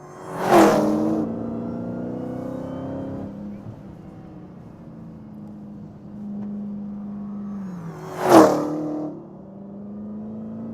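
2015 Dodge Challenger SRT Hellcat's supercharged 6.2-litre V8 idling, blipped sharply twice, about eight seconds apart, with the revs falling back to idle after each.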